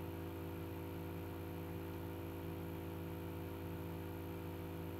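Quiet room tone: a steady low hum with faint hiss, unchanging throughout, with no distinct handling clicks.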